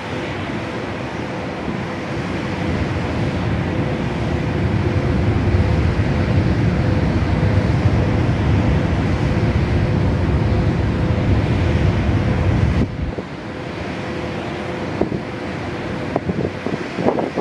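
Steady machinery hum from the standing EH500 electric locomotive, with a faint steady whine in it; it grows over the first few seconds and cuts off abruptly about 13 seconds in. Wind buffets the microphone throughout.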